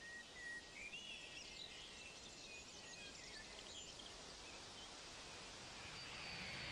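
Faint outdoor ambience with small birds chirping in short calls. Near the end a jet aircraft's rushing noise begins to rise, with a thin high whine.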